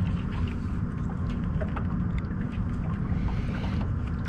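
Steady low rumble of wind and water noise around a small fishing boat, with a few faint clicks scattered through it.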